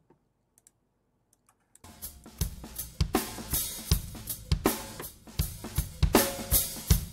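A few faint clicks, then, about two seconds in, a recording of a live acoustic drum kit starts playing: kick, snare and cymbals in a steady groove. It is taken from a front-of-kit microphone, so the room's echo is heard around the hits.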